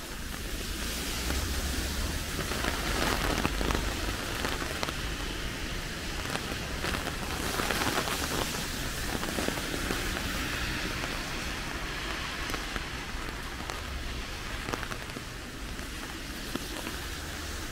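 Rain pattering, a dense crackle of many small drops, swelling and easing at times, over a low rumble.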